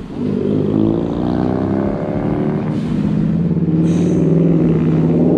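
A car engine running steadily at a low, even pitch, growing a little louder near the end.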